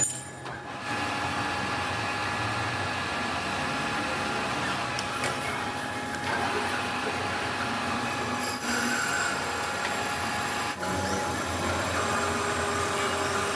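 Workshop power tool running steadily with a grinding or cutting noise, broken by a brief click or dip about two-thirds of the way through.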